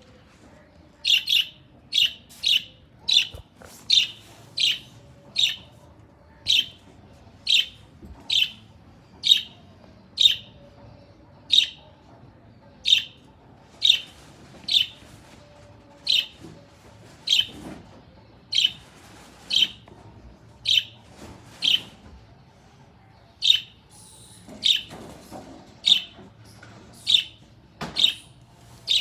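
A pet parrot calling over and over with short, sharp, high chirps, roughly one a second, with occasional quick pairs.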